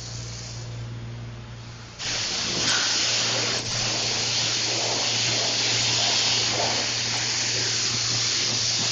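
A pressure washer's motor hums steadily. About two seconds in, the spray wand opens with a sudden loud, steady hiss of the water jet hitting the vinyl tarp, and it keeps spraying.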